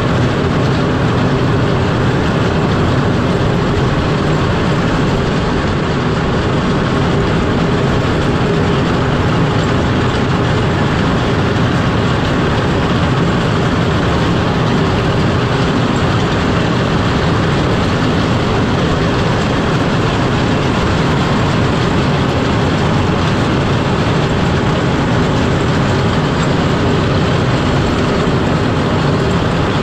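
Cat 140M3 motor grader's toothed blade scraping and breaking ice on a road surface as the machine drives, a steady, loud grinding rumble mixed with the grader running.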